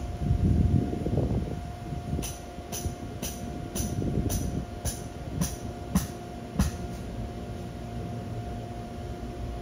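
Electric inflatable blower keeping a bounce house inflated, running with a steady hum and a constant tone. A series of sharp knocks, about two a second, comes in the middle and stops a few seconds before the end.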